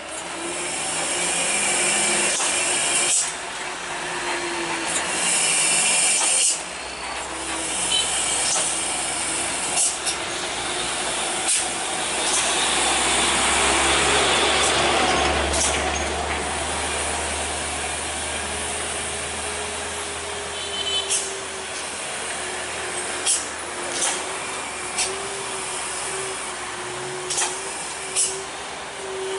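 Heavy diesel cargo trucks running past with engine hum and road noise, swelling as one passes close by about halfway through, with several short sharp sounds near the end.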